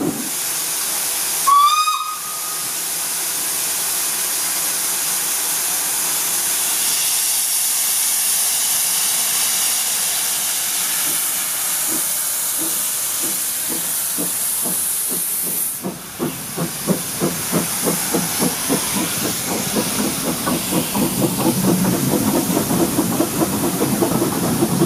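A short steam whistle toot, then a steady loud hiss of steam from the Manning Wardle 0-6-0 saddle-tank locomotive Sir Berkeley. The locomotive then starts away: its exhaust chuffs begin faintly and grow louder and quicker, and the hiss stops about two-thirds of the way through.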